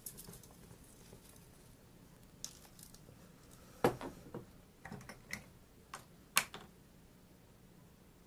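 Light clicks and taps of small miniature kitchenware being handled and set down: a few scattered knocks, then a cluster of sharper ones between about four and six and a half seconds in.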